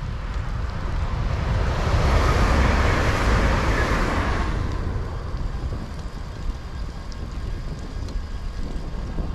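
A vehicle passing on a road: its noise swells and fades over about three seconds, over a steady low rumble of wind on the microphone.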